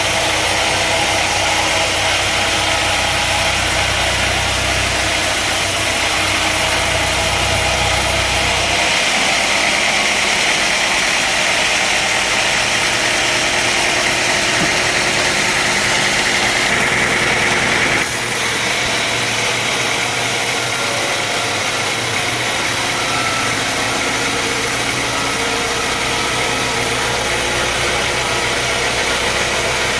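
Sawmill machinery running steadily: a continuous engine-like drone with a hiss over it. The sound changes abruptly about nine seconds in, and again about eighteen seconds in.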